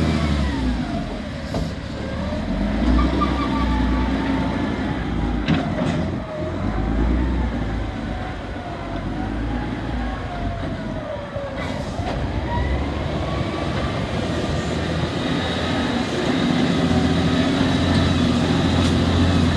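A motor vehicle's engine running, its pitch slowly rising and falling, with a steady low rumble underneath.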